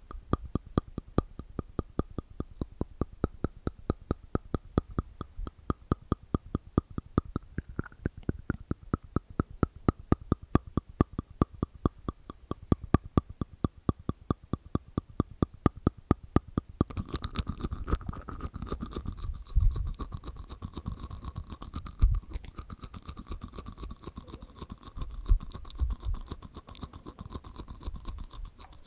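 Close-miked ASMR mouth sounds made inside the mouth with the tongue and teeth: a fast, even run of sharp clicks, changing about two-thirds of the way through to denser, closer-spaced clicking with a few low thumps.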